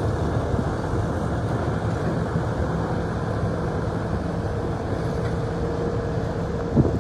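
Diesel engine of a 2003 International 9400i Eagle tandem-axle truck tractor running as the truck drives slowly over gravel, with a steady whine over the engine noise. A single sharp knock near the end.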